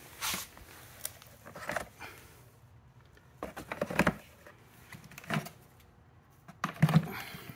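Handling noise from nylon and canvas tool pouches on a rolling tool box: scattered rustles and light knocks, about half a dozen separate sounds a second or so apart.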